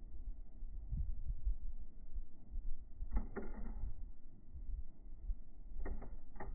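Low, uneven rumble of a thunderstorm, with two sharp clicks about three seconds in and three more near the end.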